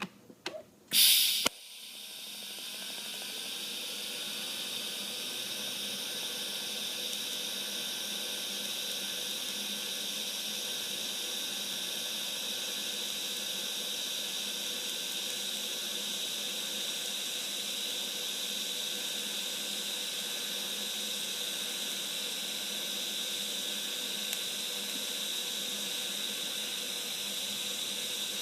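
TIG welding arc: a sharp burst as the arc strikes about a second in, then a steady hiss with a faint high whine as the weld runs.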